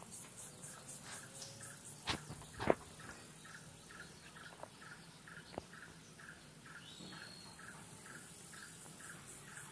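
Insects chirping in a steady fast pulse, with a second chirp repeating about three times a second. About two seconds in come two light knocks, the loudest sounds, from the small steel bowl as flour is worked in it by hand, with a few fainter ticks later.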